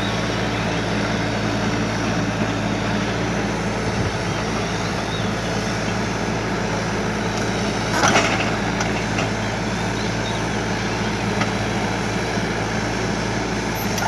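Kubota U35 mini excavator's diesel engine running steadily, with a louder sharp crack about eight seconds in.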